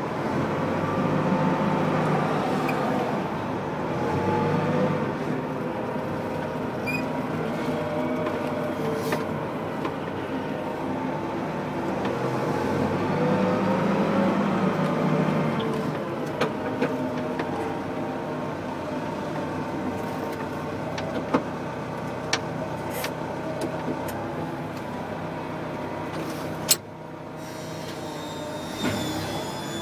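Rough-terrain forklift engine running while the machine drives, heard from inside its cab, the pitch rising and falling with the throttle. A few sharp clicks sound in the second half, and the engine note drops off suddenly near the end.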